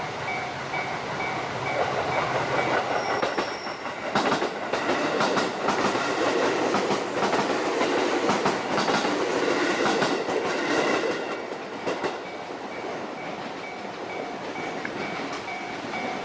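A Japanese level-crossing warning bell rings in a steady repeating beat while a JR Hachikō Line train passes. The train runs loudest from about two seconds in to about twelve, a rumble with the clickety-clack of its wheels over the rail joints, and the bell comes through again as the train moves away.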